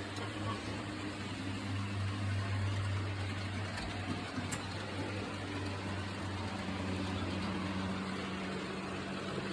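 HO-scale model train running on the layout: a steady low electric hum with an even whirring haze over it.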